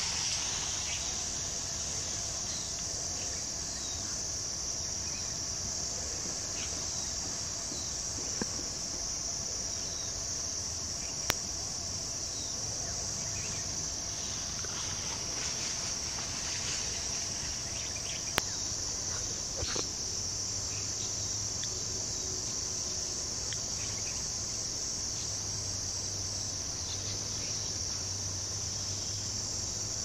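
Steady high-pitched insect chorus droning without a break, with a couple of sharp clicks partway through.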